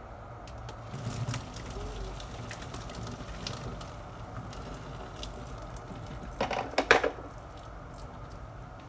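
Scattered small clicks and knocks of household objects being handled over a steady low hum, with a louder clatter of several quick knocks about six and a half seconds in.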